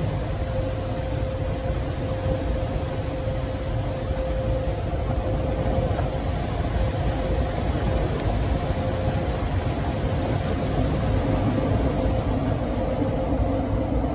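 Steady car noise heard from inside the cabin: the engine running with a low rumble and a constant mid-pitched hum, growing a little louder near the end.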